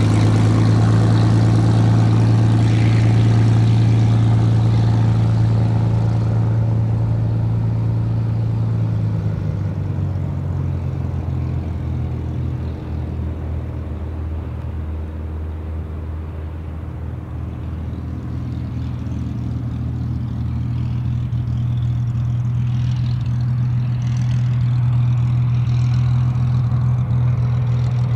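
Hawker Hurricane Mk.I's Rolls-Royce Merlin III V12 engine running at low power as the aircraft taxis: a steady, low drone. It grows fainter in the middle as the aircraft moves away, then louder again near the end.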